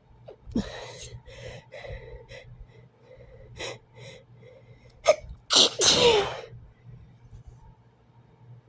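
A person's allergic sneezing from a cat allergy: a few short breathy catches of breath, then one loud sneeze about five and a half seconds in, its voiced cry falling in pitch.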